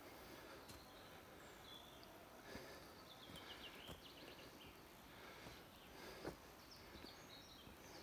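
Faint birdsong over a quiet steady background: a few high chirps, with a quick falling run of notes near the middle, and a few soft knocks.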